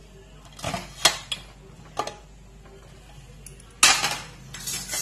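Aluminium pressure cooker lid being opened and lifted off. A few light metal clicks come in the first two seconds, then a loud clank a little under four seconds in and another clatter near the end.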